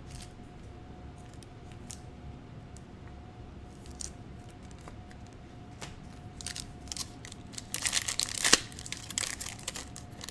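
Foil Panini Prizm card pack crinkling and being torn open, a burst of crackling tears loudest about eight seconds in, after several seconds of only faint scattered clicks.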